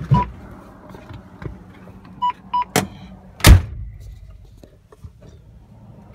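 Volvo semi truck's cab electronics powering up with the key on, the engine not yet started: short dashboard beeps, one as the sound begins and two more a little over two seconds in. They are followed by a sharp knock and a heavy thump about three and a half seconds in, the loudest sound.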